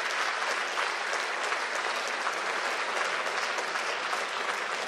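Audience applauding in a concert hall: dense, steady clapping from many people.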